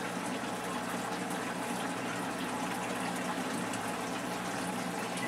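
Saltwater reef aquarium's water circulation running steadily: a constant rush and trickle of moving water with a low, even hum underneath, typical of the tank's pump and filtration.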